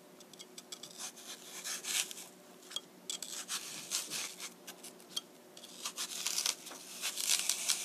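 Knife blade paring the peel and flesh off an apple held in the hand: a run of short, irregular scraping strokes, busier and louder near the end.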